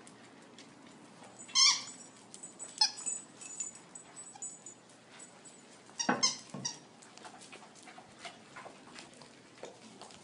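Dogs playing together with a few short, sharp barks: a loud one about one and a half seconds in, another near three seconds, and two or three close together about six seconds in.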